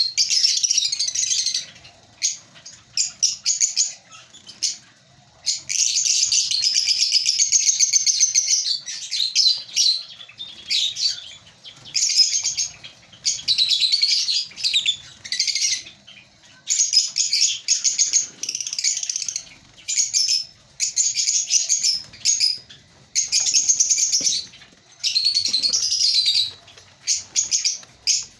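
Lovebirds chattering: shrill, rapid high-pitched chirps in bouts of one to three seconds, broken by short pauses.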